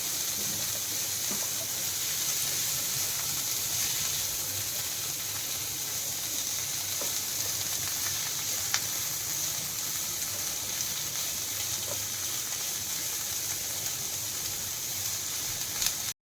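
Chopped onion, capsicum and green chilli sizzling steadily in hot oil in a pan, with a single light tick a little past the middle.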